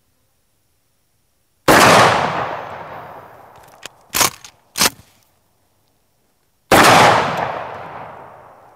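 Two very loud 12-gauge shotgun blasts from a Remington Tac-14 pump-action firearm, about five seconds apart, each ringing out in a long echo. Between the shots come two sharp clacks as the pump action is racked back and forward to chamber the next shell.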